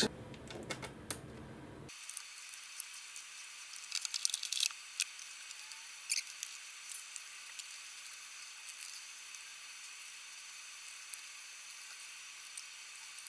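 Faint scattered clicks and scratches of hands working on a metal battery cover plate as it is fitted over an e-scooter deck, with a small cluster about four seconds in.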